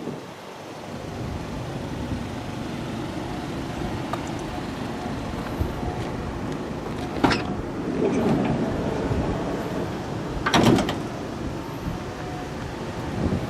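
Two doors on a Toyota HiAce ambulance being shut, each a sharp thud, about seven and ten and a half seconds in, over steady wind noise.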